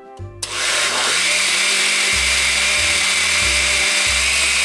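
Oster countertop blender with a glass jar starting suddenly about half a second in and then running steadily at full speed, blending a liquid mix of coconut cream, coconut milk, cream and cream cheese.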